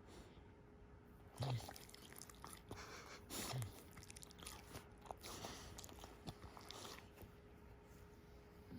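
Sleeping dog snoring softly: a low rasping snore roughly every two seconds, mixed with small wet mouth clicks and smacks.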